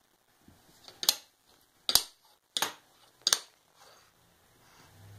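A baby banging a spoon on a hardwood floor: four sharp knocks about three-quarters of a second apart, with a few lighter taps around them.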